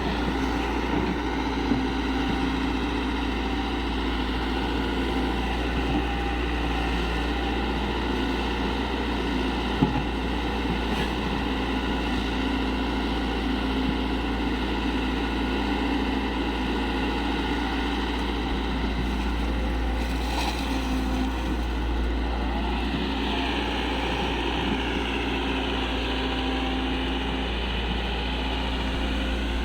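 Excavator diesel engine running steadily with a constant low rumble and a steady hum. About two-thirds of the way through, a higher whine starts to waver up and down.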